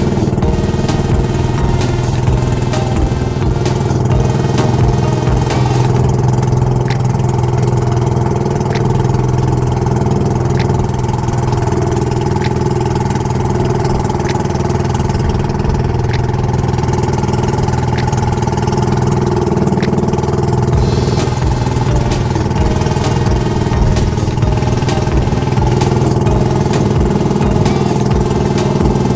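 Motorized outrigger boat's engine running steadily at cruising speed, with the boat under way.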